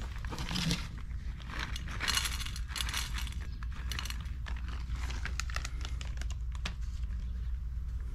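Rustling and crinkling with many scattered clicks over a steady low hum.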